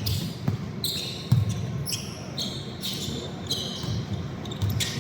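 Basketball game in play: a ball bouncing in irregular thumps on the court, with many short, high sneaker squeaks on the floor.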